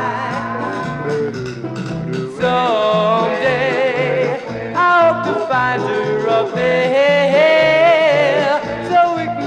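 Doo-wop vocal group record playing: wavering sung harmonies over a stepping bass line.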